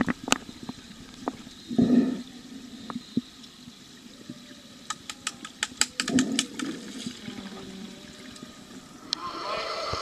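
Underwater pool sound during an underwater hockey game: muffled bubbling bursts and scattered sharp clicks of sticks and puck on the pool bottom. About nine seconds in, the microphone breaks the surface and a steady hiss of splashing water and pool-hall echo takes over.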